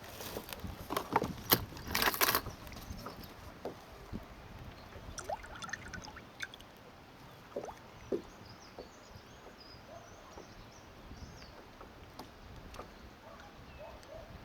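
Kayak on the water: a burst of hard knocks and splashes against the hull in the first couple of seconds, then scattered small knocks and clicks over quiet water sloshing.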